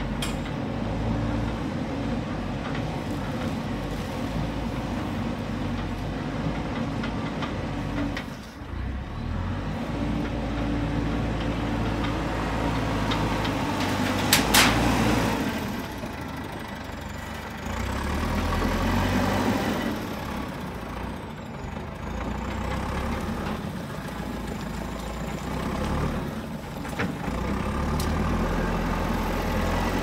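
JCB 3DX backhoe loader's diesel engine running while the machine works, its revs rising and falling several times. A short loud burst of noise about halfway through.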